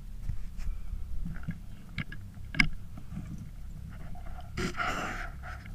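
Handling noise from a scoped rifle being swung: scattered small knocks and clicks, one sharper click about two and a half seconds in, and a brief rustle near the end.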